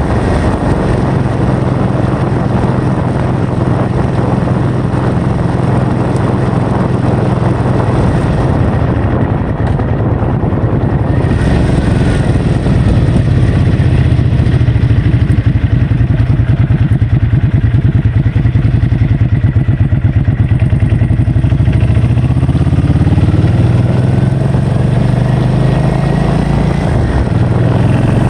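An engine running steadily under heavy wind noise on the microphone; its pitch climbs in the last few seconds.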